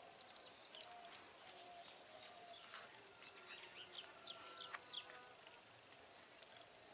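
Quiet outdoor background with small birds chirping: scattered short high chirps, a cluster of them in the middle. Faint soft clicks come from fingers mixing rice on a banana leaf.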